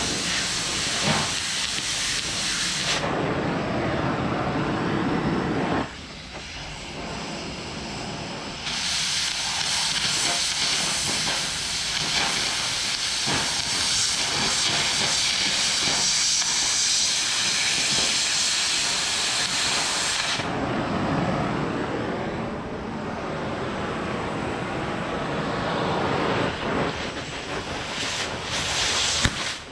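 Oxy-fuel cutting torch hissing steadily as it cuts through the steel edge of a loader bucket. The hiss thins out and gets duller from about three to nine seconds in and again from about twenty to twenty-six seconds in.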